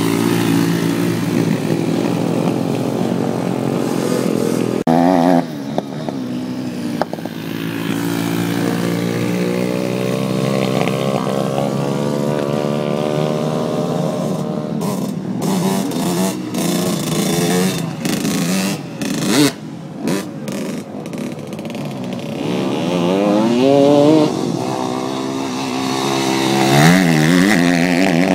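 Small dirt-bike engines running and revving as riders lap a dirt track, the pitch rising and falling with the throttle and climbing sharply twice near the end.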